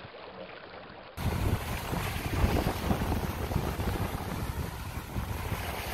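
Wind buffeting the microphone over choppy water, with waves washing; it starts suddenly about a second in, after a brief quieter stretch.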